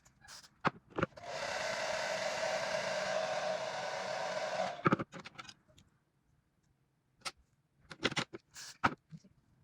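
Hair dryer blowing steadily for about three and a half seconds, then switched off suddenly, with a few light handling clicks and taps around it.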